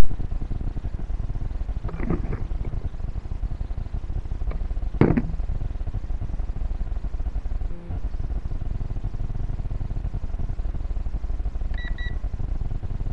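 Steady low rumble and hiss picked up by the Syma X5C quadcopter's onboard camera microphone while it rests before take-off. A couple of knocks come about 2 and 5 seconds in, and a short double beep near the end.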